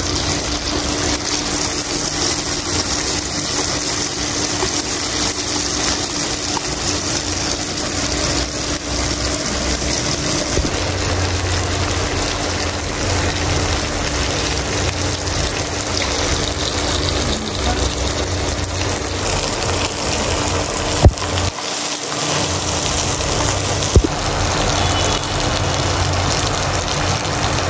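Pork shoulder and vegetables sizzling steadily in oil and marinade in a nonstick pan on an induction cooktop, with a steady hum underneath. Two sharp knocks come near the end.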